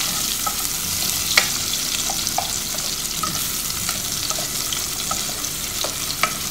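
Garlic, onion and tomato sautéing in oil in a pot: a steady sizzle, with a spoon stirring through them and clicking against the pot now and then, the sharpest click about a second and a half in.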